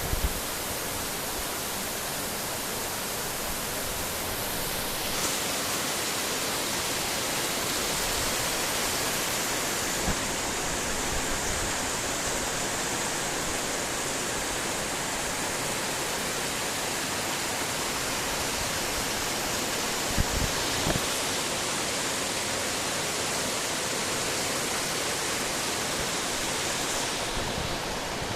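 Heavy rain falling steadily, a continuous dense hiss, with a few faint knocks about ten and twenty seconds in.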